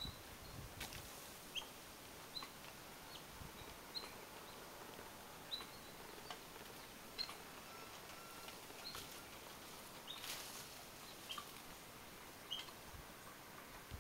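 Faint, short, high chirps from an animal, repeating roughly once a second, with a couple of brief rustles.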